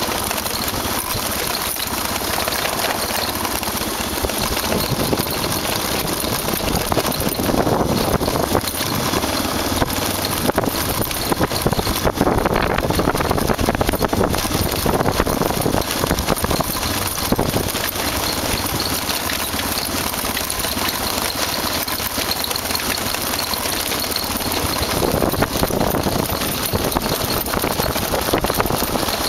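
Motorcycle running at a steady speed over a rough gravel road, its engine mixed with a constant rush of road and wind noise.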